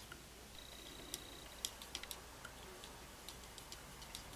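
Faint, light, irregular clicks and ticks of a loom pick and yarn against the pegs of a wooden round knitting loom as pegs are e-wrapped.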